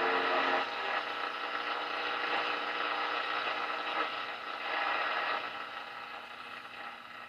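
1937 Philco 37-690 tube radio being tuned off a station: the last of the broadcast audio cuts off less than a second in, leaving a steady hiss of static between stations that slowly fades.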